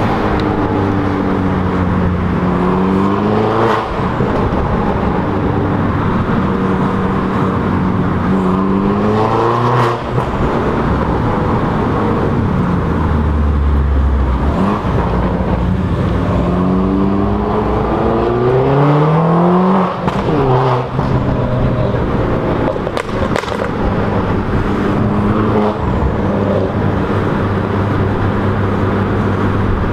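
Straight-piped Mini Cooper S heard from inside the cabin, pulling through the gears: its engine note climbs steadily about three times, each climb cut off by a short dip as it shifts or lifts off. A few sharp cracks come about two-thirds of the way through.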